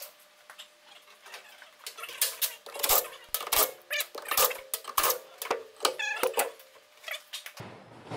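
Irregular sharp metallic clicks and clanks, a few a second, from a cordless impact wrench and loosened hardware as the front brake backing plate of a 1973 VW Super Beetle is unbolted from the spindle. Busiest in the middle few seconds.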